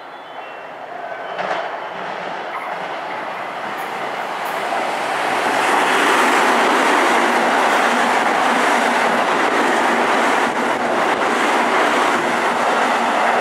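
Electric commuter train passing through a station at speed without stopping: its running noise builds over the first five seconds, then holds loud and steady as the cars go by. A short sharp sound stands out about a second and a half in.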